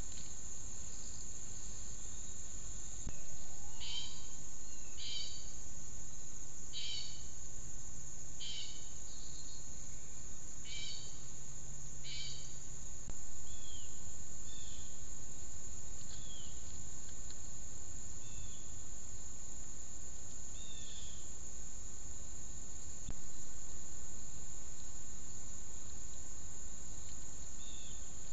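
Steady high-pitched insect buzzing outdoors, with a bird giving short calls every second or two for several seconds, then scattered short falling chirps.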